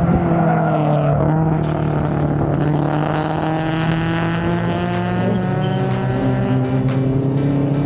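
Racing car engines running and revving, their pitch dipping near the start and then climbing. From the middle on, sharp ticks come about once a second.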